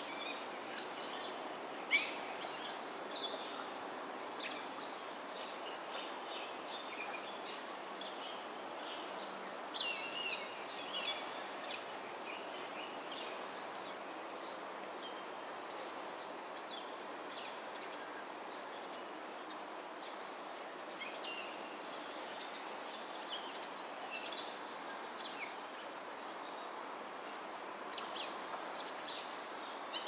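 A steady high-pitched insect chorus with a few short, high chirps scattered through it, the busiest at about 2 seconds and again around 10 seconds, over a steady background hiss.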